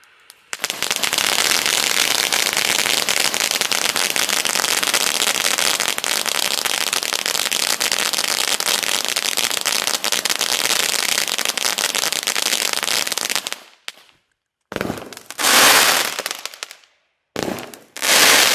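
24-shot fountain-style consumer fireworks cake firing. It starts about half a second in with a dense, continuous crackling hiss that lasts about thirteen seconds. After a short break come several separate hissing spurts of sparks, each swelling and then fading.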